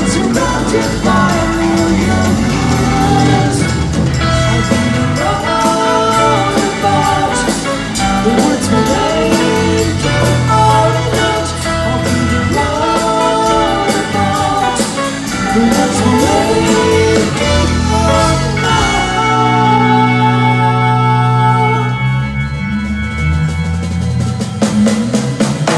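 A progressive rock band playing live in a concert hall: a singer over electric guitar, bass, keyboards and drums. Near the end the drums and cymbals drop out, leaving a held chord.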